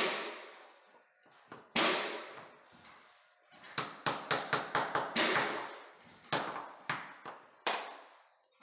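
White rubber mallet knocking on luxury vinyl planks to seat and lock their click joints. A hard knock comes at the start and another about two seconds in. Then there is a quick run of about seven taps a little after the middle, and three more single knocks near the end, each dying away briefly.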